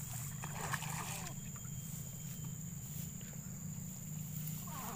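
Steady high-pitched insect chirring, typical of crickets, over a low steady hum, with a few short clicks in the first second or so.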